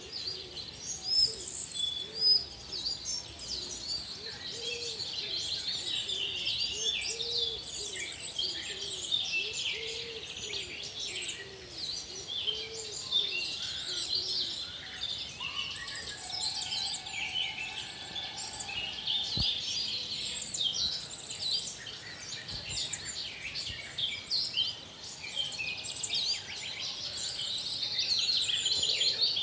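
Many birds chirping and singing at once in a dense, continuous chorus of short high chirps, with a lower repeated call through roughly the first half.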